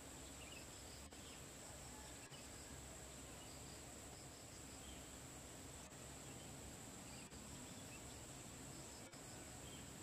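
Faint outdoor ambience dominated by a steady, high-pitched insect drone, with a few soft chirps now and then.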